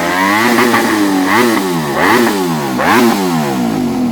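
Ducati Desmosedici V4 motorcycle engine blipped four times in quick succession, each rev climbing sharply and dropping back toward idle.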